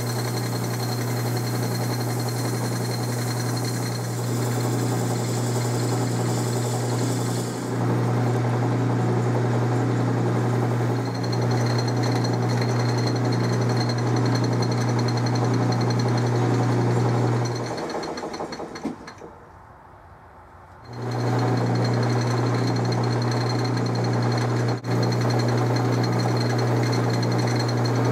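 12-inch Atlas metal lathe running, a steady motor and drive hum with a rapid regular beat, while a spinning steel part is polished by hand with an abrasive pad. The hum dies away about eighteen seconds in and comes back about three seconds later.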